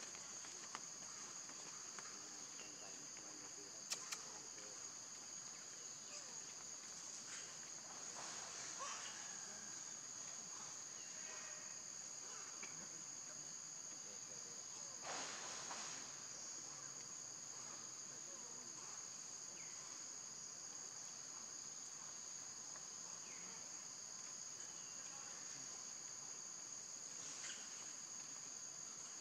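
Steady high-pitched drone of forest insects, with a sharp click about four seconds in and a brief rustle about halfway through.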